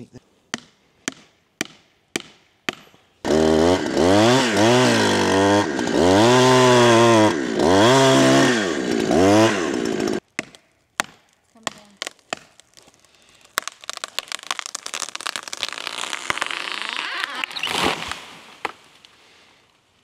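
A few sharp taps, then a two-stroke gas chainsaw revving up and dropping in pitch again and again as it cuts into an eastern red cedar trunk during felling. After the saw stops, a long stretch of cracking and crashing through branches as the tree falls, loudest near the end.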